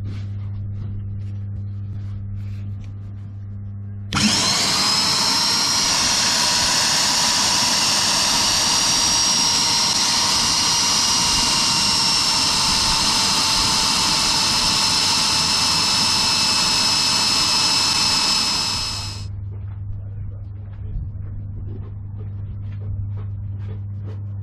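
Electric drill boring into armoured steel: the motor spins up with a rising whine about four seconds in, runs steadily under load for about fifteen seconds, then stops. A steady low hum sounds before and after it.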